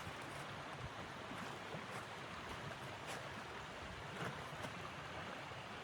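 Steady rushing wind noise, with a few faint ticks scattered through it.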